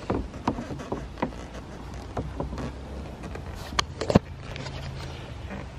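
Scattered light knocks and clicks of parts being handled, with two sharper clacks about four seconds in, over a low steady hum.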